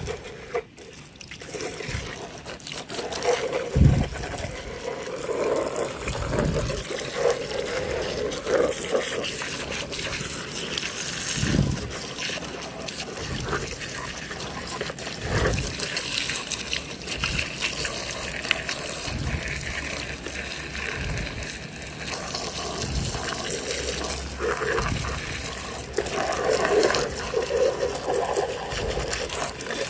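Running water splashing as mud-caked toy cars are washed, with occasional low thuds from the toys being handled.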